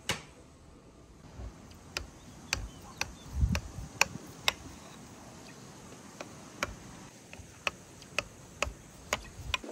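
Sharp taps or clicks at a steady pace of about two a second, pausing for a second and a half in the middle, with a duller thump about a third of the way in.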